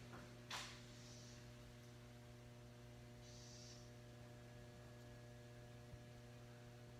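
Near silence with a steady low electrical hum, and a brief rustle about half a second in.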